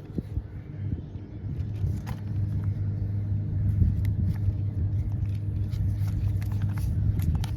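A vehicle engine running with a steady low hum that builds up about a second in and holds until near the end, over a background rumble.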